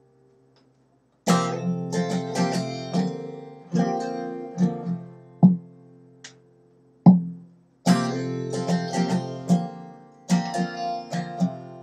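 Steel-string acoustic guitar strummed in short rhythmic phrases with sharp accented chords, starting about a second in and briefly stopping midway: the instrumental opening of a folk song, before the vocal comes in.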